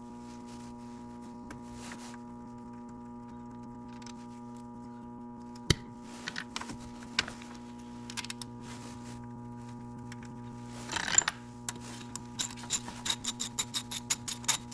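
Steady electrical hum under hand-tool work on the car: a few scattered clicks and a brief rustle, then a fast, even run of ratchet clicks near the end as a fitting is tightened.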